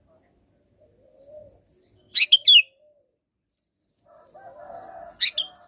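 Sooty-headed bulbul calling: a quick loud burst of three whistled, sliding notes about two seconds in, and a shorter two-note call near the end.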